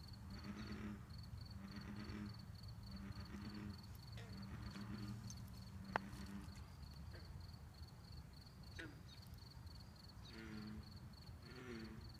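Bullfrogs calling: a run of low, deep croaks about one a second, which stops for a few seconds midway and then starts again. Behind them an insect keeps up a steady, high, pulsing trill, and there is one sharp click about six seconds in.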